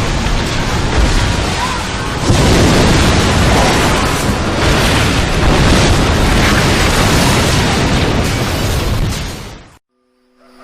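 Loud, dense rushing noise of heavy surf with wind buffeting the microphone, growing louder about two seconds in and cutting off abruptly near the end.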